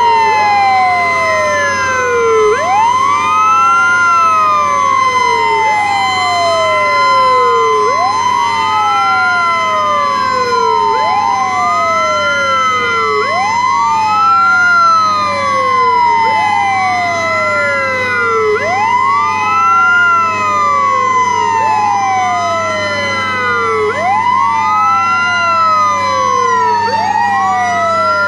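Several fire-truck sirens wailing together out of step, each sweeping quickly up and sliding slowly down about every two and a half seconds, over a steady high siren tone and a low hum.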